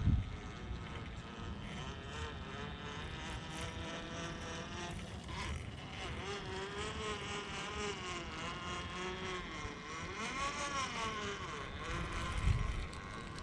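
Hobbywing Quickrun Fusion Pro brushless motor of a Cross RC scale crawler whining, its pitch rising and falling with the throttle as the truck crawls. A dull thump near the end.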